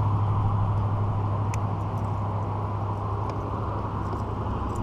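Bow-mounted electric trolling motor running with a steady low hum, under a haze of wind and water noise.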